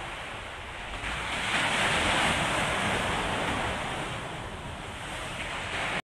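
Sea waves washing and breaking, with wind. The surge swells about a second and a half in and slowly eases off.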